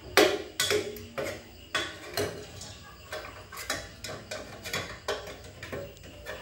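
Corn kernels popping inside the covered metal pan of a hand-cranked popcorn machine as the stirrer is turned: irregular sharp pops, about three a second.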